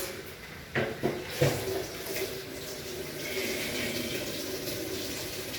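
Water running from a tap into a sink, after a few short knocks in the first second and a half.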